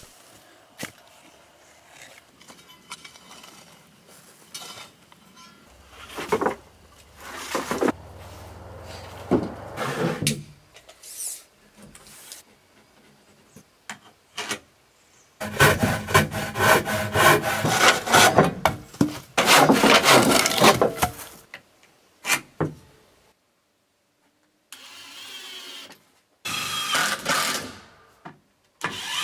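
Hand-tool building work: a shovel scraping and digging into soil at first. Later, work on pine boards, with a loud stretch of sawing or cutting about fifteen seconds in that stops briefly and starts again. Near the end, wooden boards knock as they are laid down.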